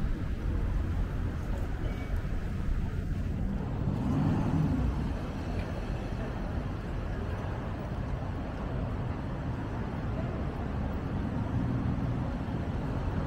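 City street traffic: a steady low rumble of cars and buses on the road. One vehicle passes more loudly about four seconds in.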